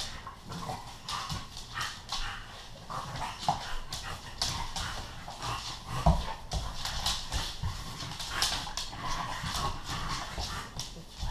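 A bullmastiff and an English bulldog play-fighting: dog vocal noises among frequent irregular clicks and scuffles of their feet on a laminate floor.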